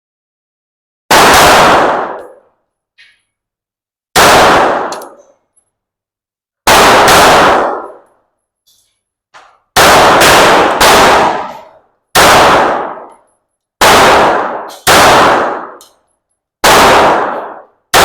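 9mm handgun fired about a dozen times at an uneven pace, the shots one to three seconds apart and a few in quick pairs. Each shot is very loud with a ringing echo that dies away over about a second, with faint small clicks between some shots.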